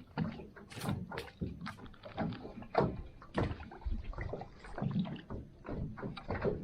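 Irregular light knocks and clatters of gear and handling in a small aluminium boat, several a second, over a low rumble.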